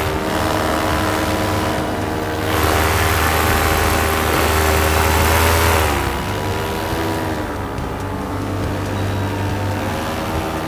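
Paramotor's two-stroke Air Conception Nitro 200 engine and propeller running steadily at power just after takeoff, with wind noise over the microphone. The engine's pitch drops a little about six seconds in, then holds.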